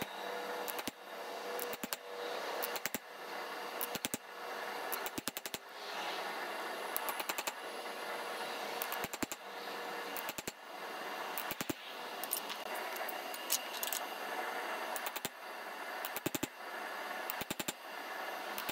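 Hammer blows on hot steel at the anvil, in short runs of a few quick strikes with pauses between, as the steel feather of a forged hook is shaped. A steady hiss runs underneath.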